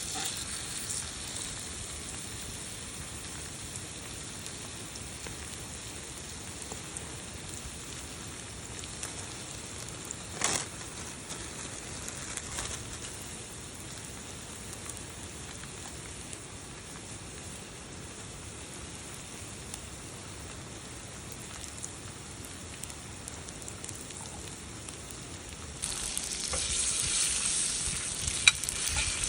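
Steak sizzling in an iron frying pan over a campfire: a steady hiss, with one sharp click about a third of the way through. The sizzle grows louder near the end.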